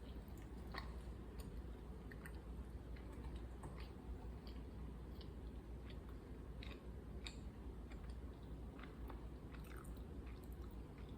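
A person chewing and biting food, with small irregular wet clicks and crunches.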